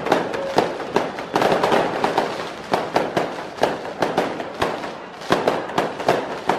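Handheld spark-spraying fireworks on sticks hissing and crackling, with a rapid, irregular run of sharp cracks and bangs, a few each second.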